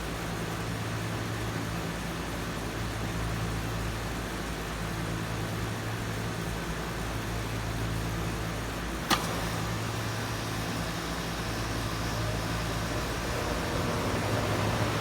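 Lennox heat pump outdoor unit running in cool mode: the steady hum of its scroll compressor under the rush of the condenser fan. A single sharp click comes about nine seconds in, and the sound grows a little louder over the last few seconds.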